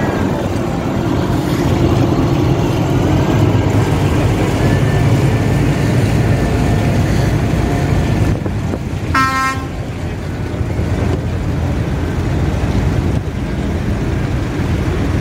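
Steady low rumble of vehicle engines running. A vehicle horn gives one short toot a little past the middle.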